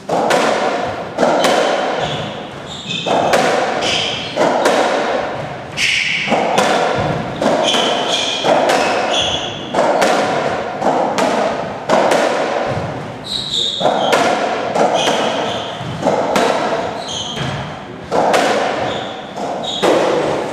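Racketball rally on a squash court: the racket strikes the bouncy rubber ball and the ball thuds off the front wall and wooden floor, about one hit a second, each echoing in the enclosed court.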